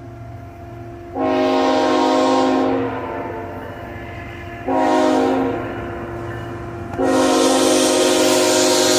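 Diesel locomotive's multi-note air horn blowing a long blast, a short one, then a long one still held at the end, as the train nears a grade crossing. It is the tail of the standard long-long-short-long crossing signal.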